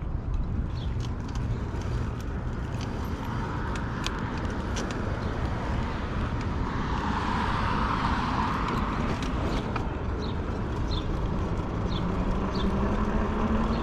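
Road traffic with a low wind rumble: a vehicle passes about halfway through, with a swell of tyre noise, and a slowly rising motor whine starts a few seconds before the end.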